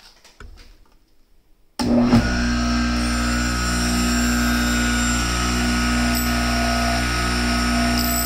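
Benchtop grinder with a diamond wheel switched on about two seconds in, then running steadily: a low motor hum with several steady whining tones above it.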